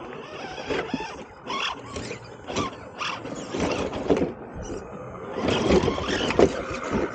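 A 1/10 scale RC rock crawler clambering over stone: irregular knocks, scrapes and crackling as its tyres and chassis grind over rock, with a faint steady motor whine near the end.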